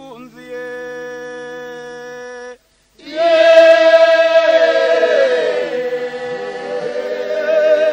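Unaccompanied vocal chanting: a single held note for a couple of seconds, a brief break, then a loud group of voices comes in together, singing with sliding pitches.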